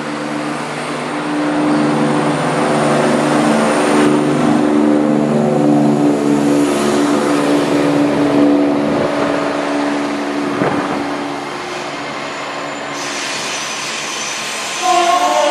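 CrossCountry Class 170 Turbostar diesel multiple unit running past at close range, its underfloor diesel engines making a steady hum that is loudest as it goes by and eases off after about ten seconds. Near the end a louder sound with several higher tones sets in.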